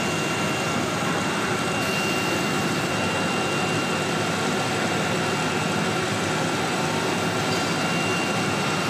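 Three-spindle CNC router running steadily: an even machine noise with a steady high whine that holds one pitch.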